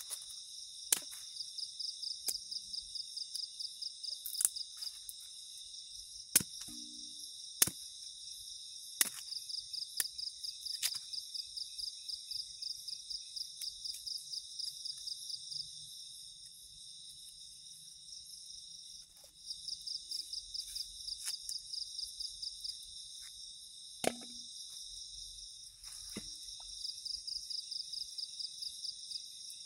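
Machete chopping through cassava roots: a string of sharp chops over the first ten seconds or so, then two more later, the loudest sounds here. Behind them, night insects keep up a steady high chirring, with loud pulsing trills that come and go every few seconds.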